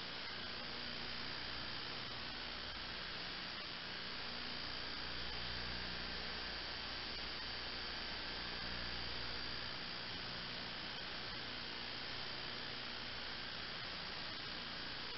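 Steady hiss with a low electrical hum, unchanging throughout, with no distinct sounds standing out.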